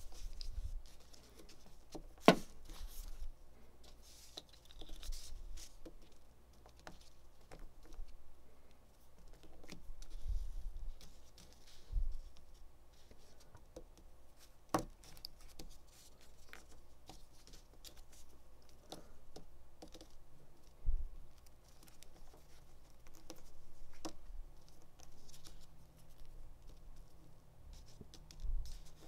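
Small plastic toy playset pieces being handled and set down on a tabletop: scattered light clicks and taps, with a couple of sharper clacks and a few soft low thumps.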